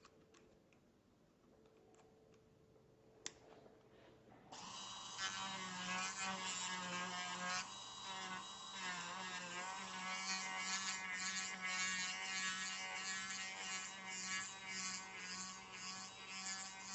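A few small clicks, then about four and a half seconds in a handheld micromotor starts and runs with a steady whine, its small abrasive bit grinding the acetate nose-pad area of a spectacle frame, the sound wavering as the bit is pressed on and eased off.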